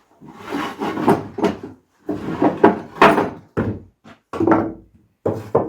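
Heavy oak boards being handled and set into place: a few irregular wooden knocks and scrapes.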